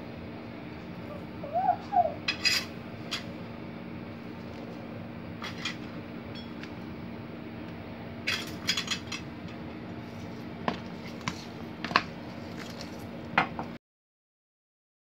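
Scattered light clinks and taps of kitchen utensils and dishes over a steady low hum, with a short chirping squeak about two seconds in. The sound cuts off to silence near the end.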